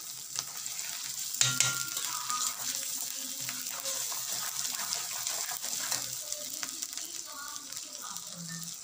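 Spiced tomato masala sizzling in a kadai while a metal spatula stirs and scrapes through it, with a few sharp clicks of the spatula on the pan about a second and a half in.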